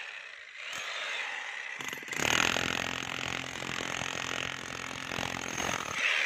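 A 5 kg electric demolition hammer is chiselling a hole into a concrete slab, giving a fast, steady rattle of hammer blows. The first two seconds are lighter and quieter, and from about two seconds in it hammers louder and fuller as it bites into the concrete.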